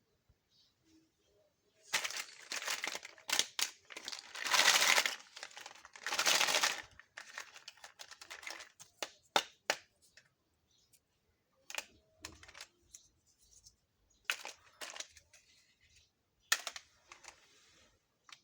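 Plastic wrapping crinkling in a few handled bursts, then scattered sharp clicks and taps of small plastic toy kitchen pieces being handled.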